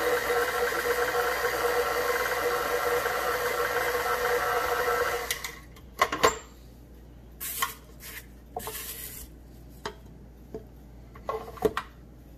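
KitchenAid Professional 5 stand mixer's motor running steadily with its flat beater creaming cream cheese and sugar, then switched off about five seconds in. After it stops, a few light clicks and knocks around the steel bowl.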